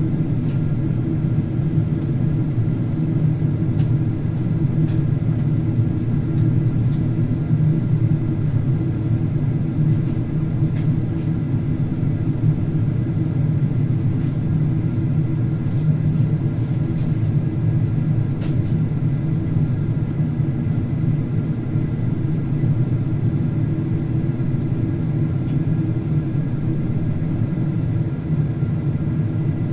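Steady cabin noise of a Boeing 767-400ER in flight on descent: a constant low rumble of engines and airflow with a few steady whining tones above it and a handful of faint light clicks.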